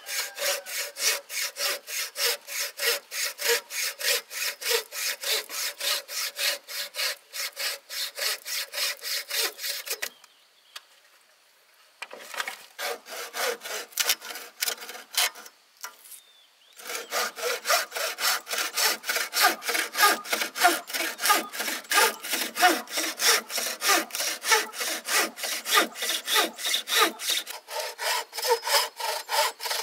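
Hand saw cutting bamboo in quick, even back-and-forth strokes, about three or four a second. The sawing stops for about two seconds a third of the way in, starts again, pauses briefly, then carries on steadily.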